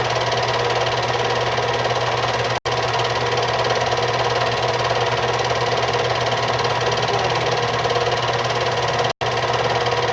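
Film projector running, a steady mechanical clatter over a constant hum, cutting out briefly twice.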